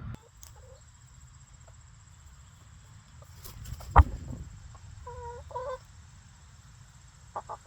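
Domestic chickens clucking softly, with a couple of short calls about five seconds in. A single sharp knock about four seconds in is the loudest sound.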